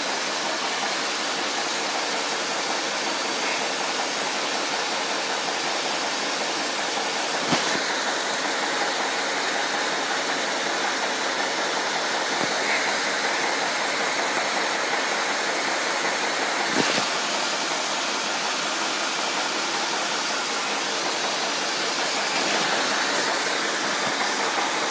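Steady, even hiss, like rushing water or rain, with two brief knocks about seven and seventeen seconds in.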